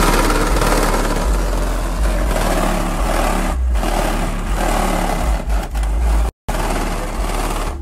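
Car audio system with two 12-inch subwoofers, a DC Audio Level 5 and an American Bass Godfather, on an American Bass 500.1 amplifier, playing bass-heavy music very loudly. Deep bass notes pulse under a dense buzzing noise across the whole range. The sound cuts out for a split second about six seconds in.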